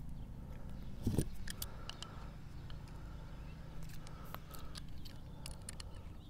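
Small metallic clicks and taps of brass pipe fittings being handled and threaded together by hand. There is a dull thump about a second in, over a low steady background rumble.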